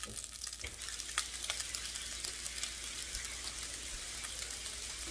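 Teriyaki sauce and water sizzling in a hot saucepan on an electric stove: a steady hiss with scattered small crackles as the liquid heats toward a boil.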